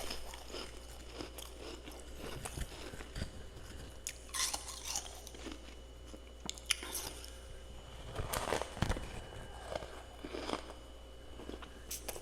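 Close-up mouth sounds of someone biting and chewing powdery freezer frost, with crisp crunches and crackles and louder bursts of crunching about four seconds in and again near eight to nine seconds.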